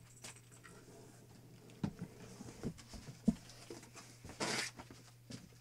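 A blanket hung up as a backdrop being pulled aside. There are a few soft knocks and clicks, then a short rustling swish of cloth just before the end, over a steady low electrical hum.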